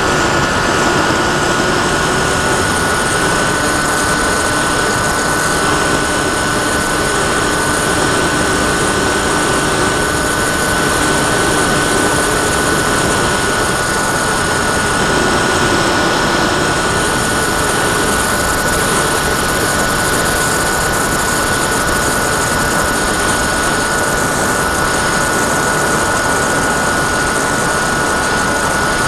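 Sky Cruiser 2400 radio-controlled plane's motor and propeller in flight: a steady high whine held at one pitch over a constant rush of air across the onboard microphone.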